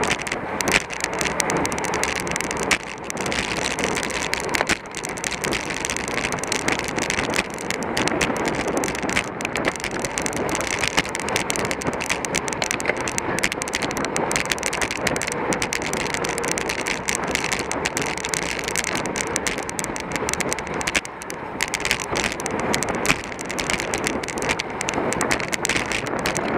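Steady rush of wind and tyre-on-road noise on a racing bicycle moving at speed, with frequent short crackles of wind buffeting on the microphone.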